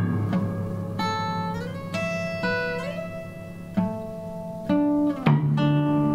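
Upright piano with its front panel off, played on the keys while a hand reaches inside to the strings: separate notes with sharp starts that ring on, a new one every half second or so. A louder low note comes in about five seconds in.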